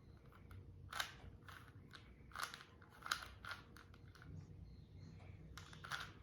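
Rubik's cube being twisted by hand: irregular plastic clicks and short scraping clacks as the layers turn.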